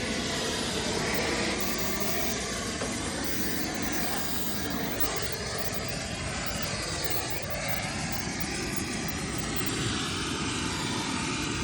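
A brazing torch flame burning steadily on a copper refrigerant line joint.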